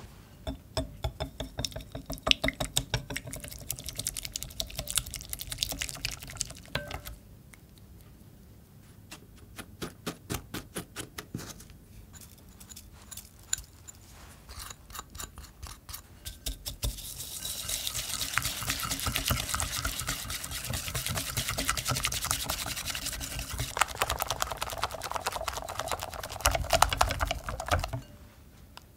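Whisk beating egg yolks in a glass bowl: rapid ticking strokes of the wires against the glass. A quieter stretch in the middle with a few scattered ticks, as sugar is added, is followed by brisk, louder whisking of the thickening yolk-and-sugar mixture that stops suddenly near the end.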